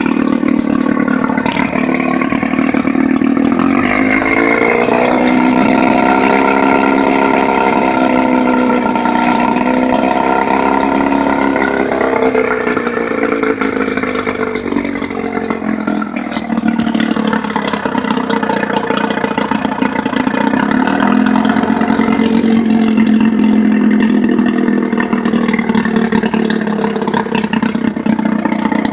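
15 hp Johnson J15RCSD two-stroke outboard motor running. Its speed rises about four seconds in, holds higher for several seconds, then drops back to a lower, steady speed.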